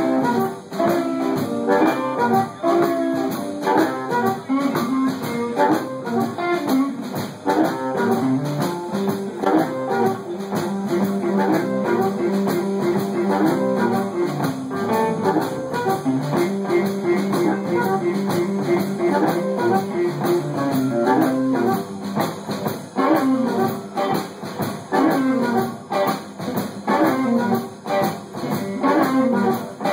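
Live blues band playing an instrumental passage: an amplified harmonica played through a handheld microphone, with long held notes in the middle, over electric guitar, bass and drums.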